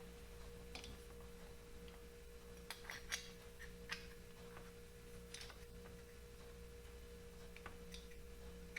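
Faint, scattered light clicks and taps of small carburetor parts being handled during reassembly, over a steady low electrical hum.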